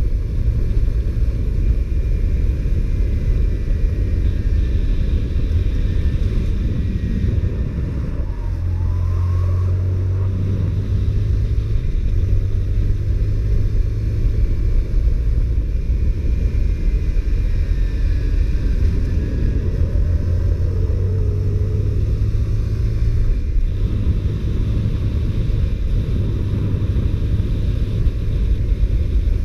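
Honda CBR125R's single-cylinder four-stroke engine running under way on a stock exhaust. Its note changes about eight seconds in and again some fifteen seconds later.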